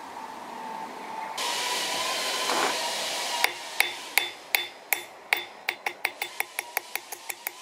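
A hammer tapping a small knife bolster on an anvil face: sharp metallic taps starting about three seconds in, spaced at first, then quickening to four or five a second. Before the taps, a loud steady hiss lasts about two seconds.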